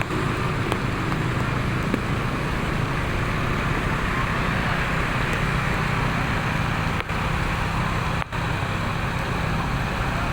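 Large vehicle engine, most likely a bus, running steadily under a constant hiss, with two brief drops in level near the end.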